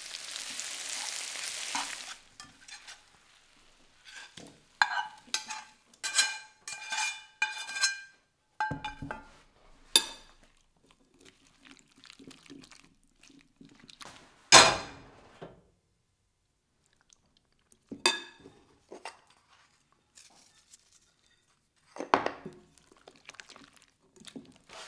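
Potatoes sizzling in a cast iron skillet under a metal spatula, stopping about two seconds in. Then scattered clinks and scrapes of utensils against the skillet and a glass mixing bowl as the potatoes are stirred into beaten egg; a run of ringing clinks comes around five to eight seconds in, and a single louder knock comes about fourteen seconds in.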